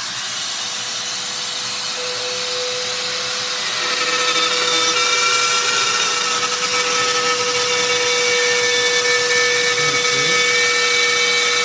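RotoZip spiral saw running at high speed, cutting a slot through a plastic underbody cover; a steady whine over a hiss, louder from about four seconds in.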